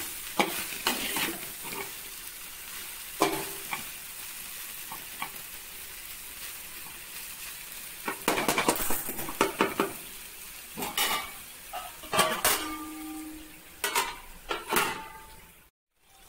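Sliced okra frying in a little oil, with a steady sizzle, while a spatula stirs it in bouts, scraping and knocking against the pan; the stirring is busiest about eight to ten seconds in. The sound cuts out briefly near the end.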